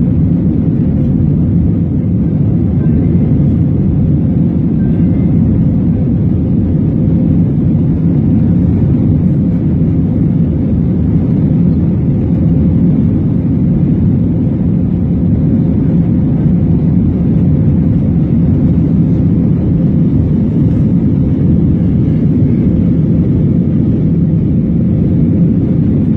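Airliner cabin noise during the climb after takeoff: a steady low roar of the jet engines and rushing air heard from a passenger seat.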